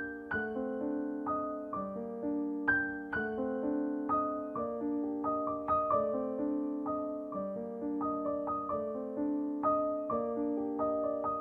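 Background piano music: a gentle melody of struck notes, each ringing and then fading.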